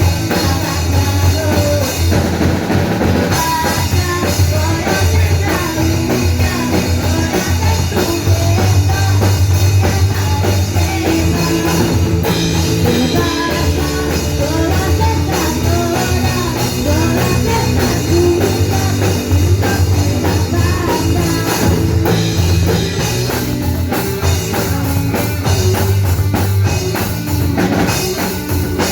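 Rock band playing live: drum kit and electric guitars with a heavy steady bass, loud and continuous.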